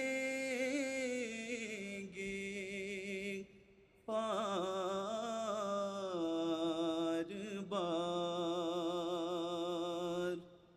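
A man's unaccompanied voice singing an Urdu nazm, drawn out in long melodic lines with wavering held notes. He pauses briefly about three and a half seconds in and stops shortly before the end.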